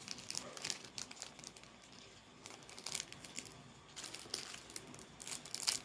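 Packaging being handled: irregular crinkling and rustling, a few louder crackles toward the end.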